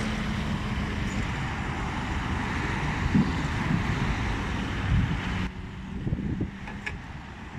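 Steady noise of road traffic passing on a busy dual carriageway. About five and a half seconds in, the sound suddenly becomes quieter and duller.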